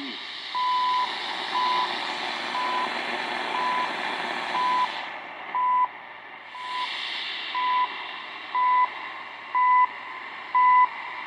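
Shortwave time-signal pips heard through the Zenith Trans-Oceanic's speaker: a short 1 kHz beep every second over hissing static, getting louder as the signal fades in. This is typical of CHU's one-second pulses.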